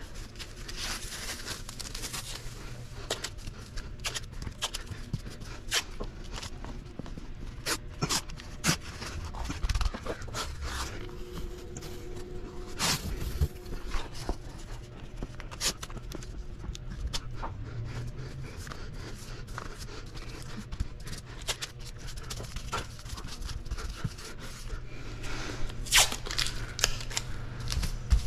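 Masking tape being pulled off the roll, torn and pressed down, with plastic masking film handled around a vehicle window: a string of short, sharp scrapes, rips and clicks at an irregular pace.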